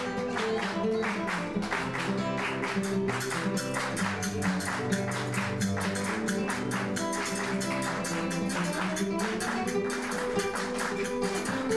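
Live acoustic Latin American music: a nylon-string classical guitar played over a quick, steady rhythm of sharp percussion clicks.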